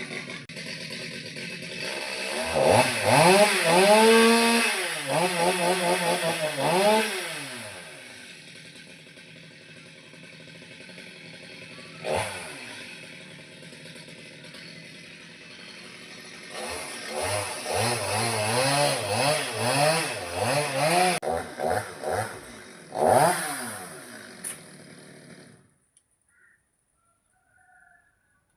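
Chainsaw revved hard in repeated bursts, settling back to a steady idle in between. It revs again in bursts and then shuts off a few seconds before the end.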